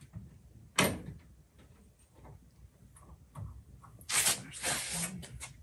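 A metal jet drive being shifted against a boat's intake while its bolt holes are lined up: a sharp knock about a second in, a few light ticks, then a rough scraping near the end.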